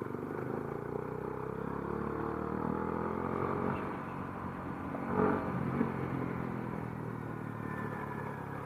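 Motorcycle engine running on the road. Its pitch rises over the first few seconds as it speeds up, then holds steady, with a brief louder swell about five seconds in. It is heard through a helmet-mounted action camera's microphone fitted with a DIY wind-noise cover.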